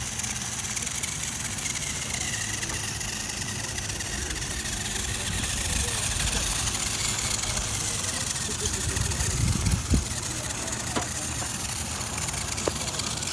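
RC car running: a steady rushing noise with a faint motor whine that drifts slowly lower in pitch, and a sharp knock about ten seconds in.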